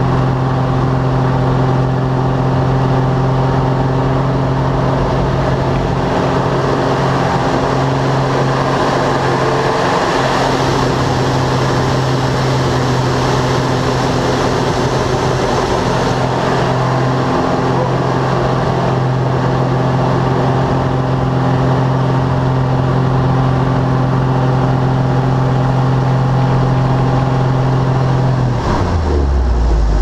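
Aerobatic plane's piston engine and propeller heard from inside the cockpit, a loud steady drone at high power. Near the end the pitch drops as the power comes back.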